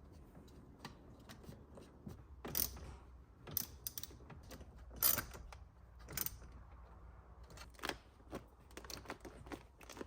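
Irregular sharp clicks and light knocks of hand work on a car steering wheel's plastic and metal parts, a handful of louder clicks spaced about a second apart, then quicker light ticks near the end.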